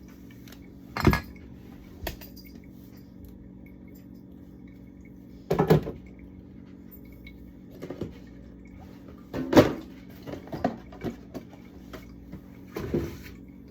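Food containers and bottles being taken out of a fridge and set down: three sharp knocks several seconds apart, with a few lighter clinks and clicks in between, over a steady low hum.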